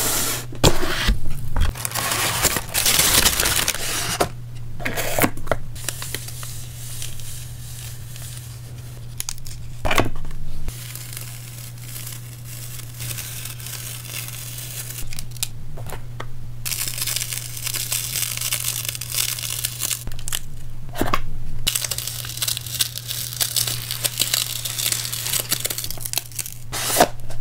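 Hands handling a cardboard mailer box and rolls of decorative PET/washi tape: crinkling, rustling and the crackly tearing of tape being unrolled and peeled, with a few sharp taps, over a steady low hum.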